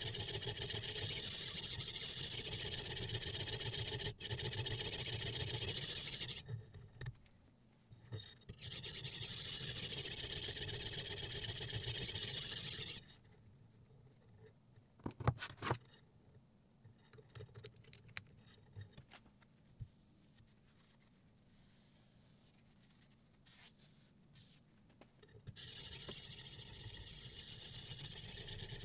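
A sharpening stone on a guided-rod knife sharpener scraping back and forth along a clamped kitchen knife's edge. The scraping stops for a quiet stretch in the middle, filled with scattered clicks and light knocks while the stone is swapped for a 400-grit one, then starts again near the end.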